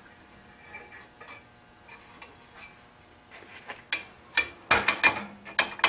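Light metallic clicks and clinks of hand tools and metal parts being handled against the heater's sheet-metal housing, sparse at first. A cluster of sharper, louder clinks starts about three and a half seconds in.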